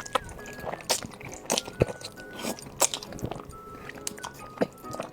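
Close-up eating sounds: a person biting and chewing food, with several sharp crunches, over soft background music.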